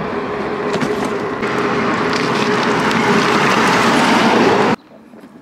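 Steady rushing wind and rolling noise from riding a mountain bike, with a constant low hum. It cuts off suddenly near the end, leaving a much quieter background.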